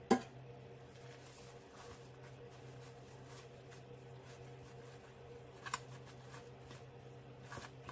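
Soft scraping of a metal offset spatula spreading whipped-cream frosting over a cake layer, with a sharp tap right at the start and two lighter taps later, over a steady low hum.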